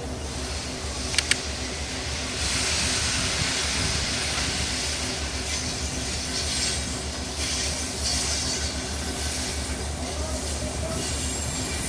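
Romanian CFR electric locomotive rolling slowly past, with a steady low hum from its electrical equipment. A hissing noise swells up about two seconds in as it draws closer, and two sharp clicks come about a second in.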